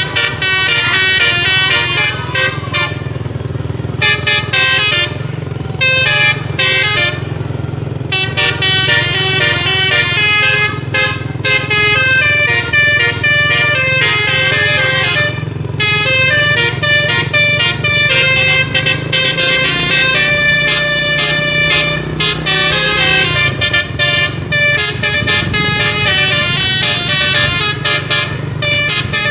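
Bus 'telolet' musical air horn playing long, fast melodic runs of many quick stepped notes, with the bus engine humming steadily underneath.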